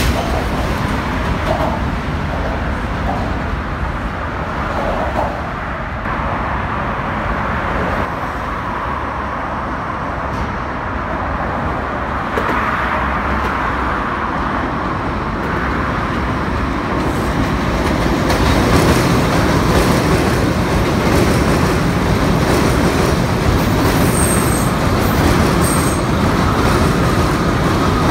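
New York City subway trains running on elevated steel track: a steady rumble of wheels and motors that grows louder about two-thirds of the way through as a new R179 train draws in close. Two brief high-pitched squeaks come near the end.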